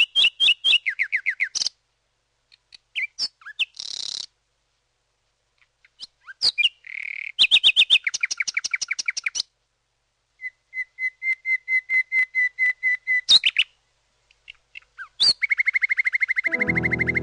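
A songbird singing in phrases of rapid repeated notes, some falling in pitch, with short silent gaps between phrases. Near the end, keyboard music with low sustained notes comes in under the song.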